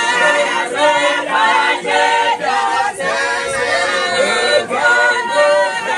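A church congregation of women and men singing a hymn together without instruments, several voices in harmony.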